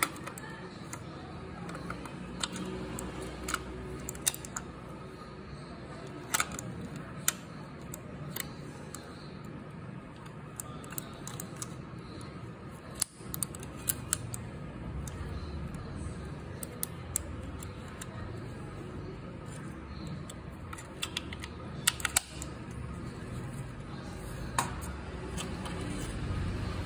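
Irregular sharp plastic clicks and taps from a Dell KM117 wireless mouse being handled while its battery is fitted, a few of them louder, over a steady low rumble.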